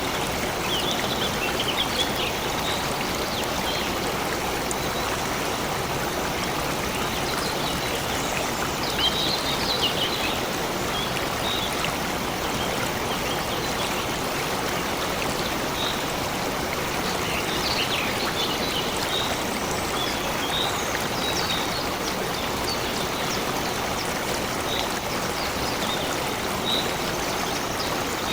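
Stream water flowing and trickling steadily, with short high bird chirps scattered over it.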